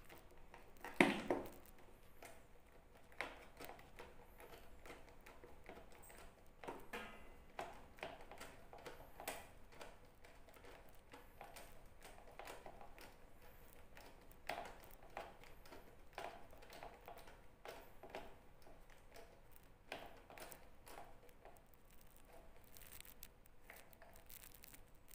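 Scattered clicks, knocks and rustles of hands pushing and fitting plastic parts around the battery compartment of a Kawasaki Ninja 250FI motorcycle, with a sharper knock about a second in.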